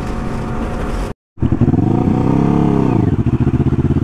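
Sport motorcycle at highway speed, its engine droning under wind rush. After a sudden cut about a second in, the engine revs up and back down, then runs on steadily at lower revs.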